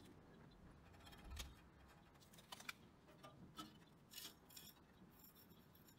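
Near silence broken by about half a dozen faint, scattered ticks and clicks as the threaded thrust-bearing adjuster on a bandsaw's upper blade guide is turned by hand, winding the bearing forward toward the blade.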